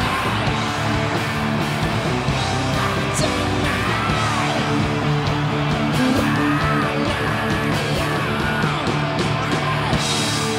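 Live rock band playing, with electric guitar to the fore and yells over the music.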